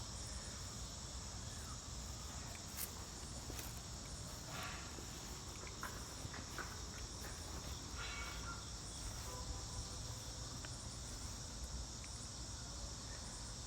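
Crickets chirring in a steady, high-pitched chorus, with a few faint clicks and knocks scattered through it.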